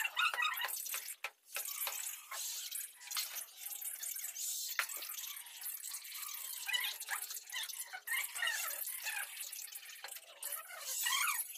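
Hand tools working damp sand-cement floor mortar: irregular, gritty wet scraping and scooping.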